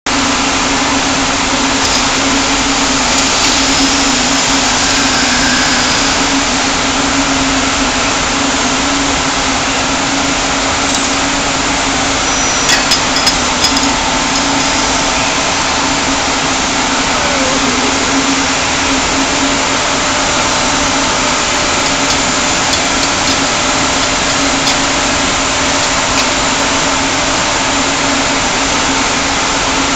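Ring spinning frames running in a spinning mill: a loud, steady, dense hiss over a constant low hum, with a few short clicks partway through.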